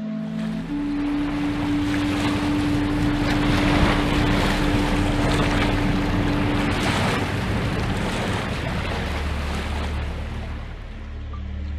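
A loud rushing noise that swells to a peak around the middle and eases off near the end, over sustained low musical notes.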